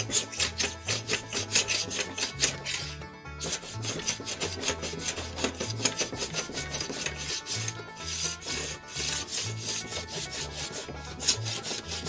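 Small brass hand plane scraping dried excess glue off a glued-up rod blank on a wooden bench, in quick repeated strokes. The strokes break off briefly about three seconds in and again near eight seconds.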